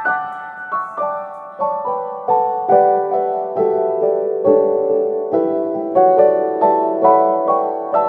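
Background music: a gentle solo piano piece, single notes struck about twice a second and ringing into one another.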